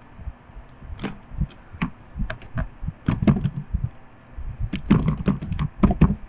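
Typing on a computer keyboard: irregular keystrokes that come in quick runs with short pauses between them, as a text entry is deleted and retyped.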